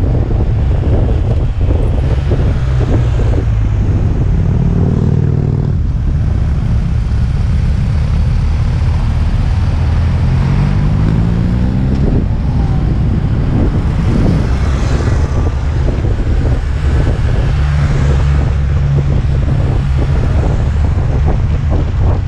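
Heavy wind rush on the camera microphone of a kick scooter running fast downhill, mixed with the engines of motorcycles riding just ahead. One engine's pitch rises for a couple of seconds about halfway through.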